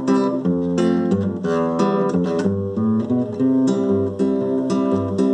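Acoustic guitar strumming chords in an instrumental interlude of a song, without voice.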